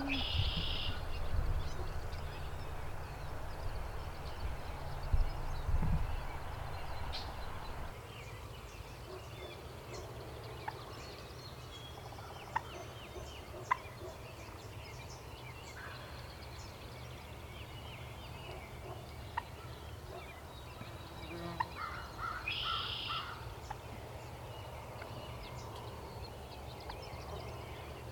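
A wild turkey tom gobbling, two short rattling gobbles: one right at the start and another about 22 seconds in. Scattered faint songbird chirps in between.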